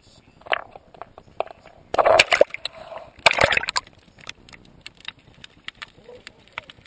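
Water splashing and sloshing as a camera is dipped off a seawall into the water, with two louder bursts of splashing about two and three seconds in. Once it is under, a run of short, sharp clicks at uneven spacing.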